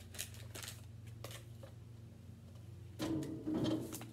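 Paper packet of strawberry Jell-O powder crinkling and rustling as it is shaken out over a bowl, with scattered light crackles and a louder burst of rustling and handling noise about three seconds in. A steady low hum runs underneath.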